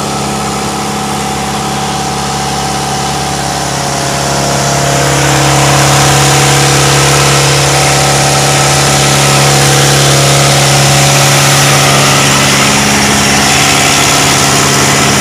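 A fishing boat's inboard engine running steadily at an even speed. It gets louder about five seconds in.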